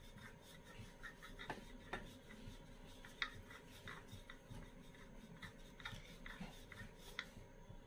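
Wooden rolling pin rolling out naan dough on a marble board: faint rubbing with scattered light clicks and taps.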